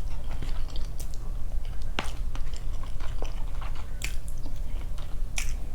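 Close-up chewing with scattered sharp mouth clicks and smacks, over a steady low hum.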